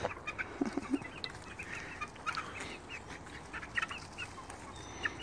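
A flock of chickens clucking quietly, a loose scatter of short clucks and chirps.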